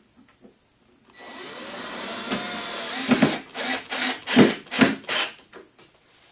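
Cordless drill with a long driver bit driving a pocket-hole screw through a wooden cleat into the cabinet. It runs steadily for about two seconds, a little louder as the screw bites, then gives a quick series of short trigger bursts to seat the screw.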